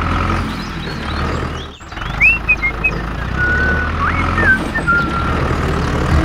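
Steady low engine rumble of a tractor, dropping out briefly about two seconds in, with a few short high chirps gliding up and down in the middle.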